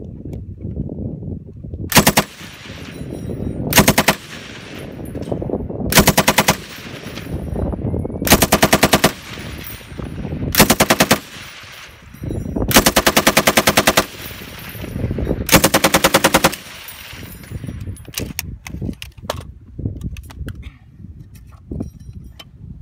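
M60 machine gun firing seven short bursts of fully automatic fire, each a rapid string of sharp reports lasting about half a second to just over a second, with a long echo trailing each burst. A few lone cracks follow near the end.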